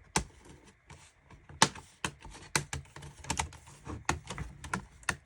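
Plastic screen bezel of a Lenovo X220 laptop being pried off with a plastic pry tool: a string of irregular sharp clicks and snaps as its clips let go, the loudest about a second and a half in.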